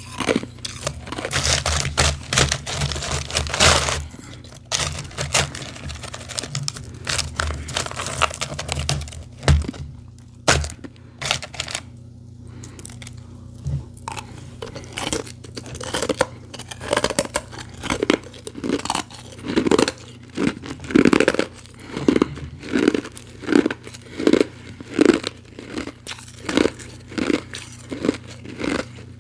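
Frozen powdery ice being crunched and chewed close to the microphone. It starts as dense crackling, and after about halfway settles into a regular run of crunching chews, roughly one and a half a second.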